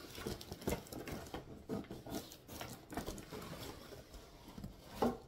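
A cardboard box being pulled and worked open by hand: irregular scraping, rustling and small knocks of the cardboard packaging, with a louder bump near the end.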